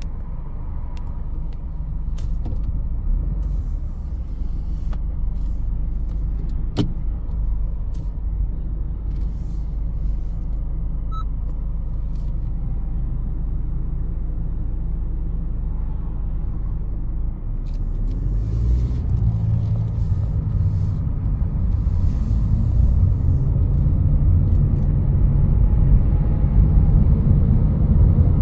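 2021 Honda HR-V Sport AWD driving: steady low engine and road rumble with scattered light clicks. About two-thirds of the way through the engine note rises and grows louder as the car accelerates.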